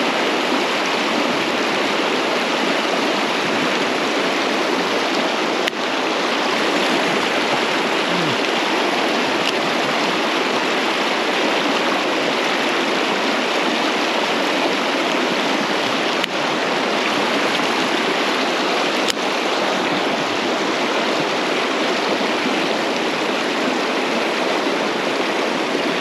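Mountain stream running over rocks: a steady, even rush of water, with a few faint clicks.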